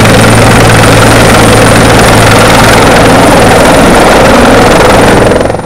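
Helicopter hovering close by: a loud, steady rotor and engine noise with a constant low hum. It fades out near the end.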